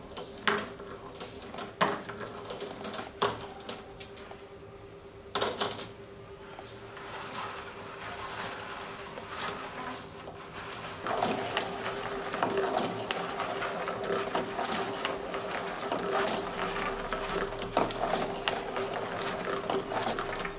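Glass marbles clicking against each other and against a cardboard marble-run track, at first as separate clicks. From about halfway there is a continuous rattle as the marbles roll down the track and ride up the cardboard lift.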